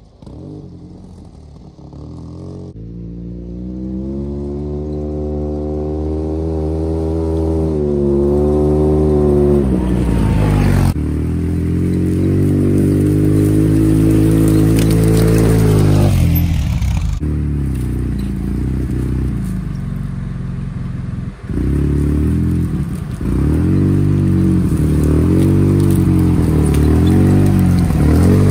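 Polaris RZR 800 side-by-side's twin-cylinder engine running again after a head gasket replacement, revving up and down as it is driven closer and growing louder, with a brief dip in the revs near the middle.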